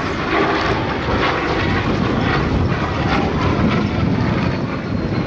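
Supermarine Spitfire's V12 piston engine running steadily as the fighter makes a close flying display pass, a little louder about four seconds in as it comes nearest.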